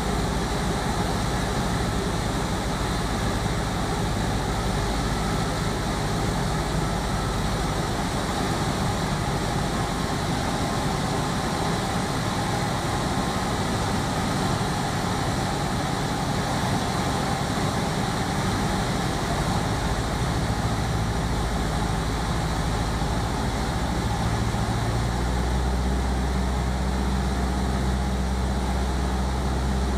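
Steady drone of a light aircraft's engine and propeller with rushing airflow, heard from inside the cockpit. The low hum grows stronger about 25 seconds in.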